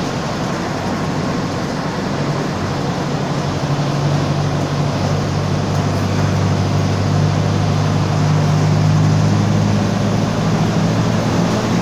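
Mercedes-Benz OF-1722M city bus under way, engine running with a steady low drone and the growl of its differential. The drone grows louder about four seconds in.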